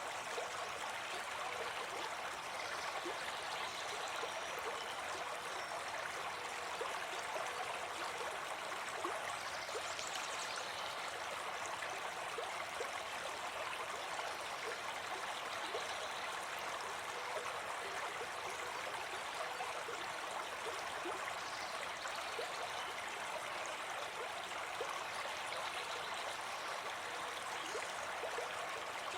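A brook babbling steadily, an even, unbroken rush of flowing water.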